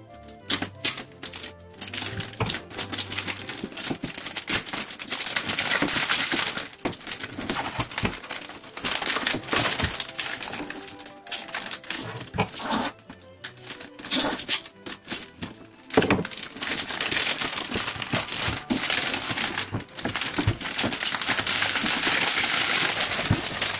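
Unpacking noise: cardboard box rustling and scraping, and plastic wrap crinkling and tearing, with many short clicks and taps as the packaging is handled.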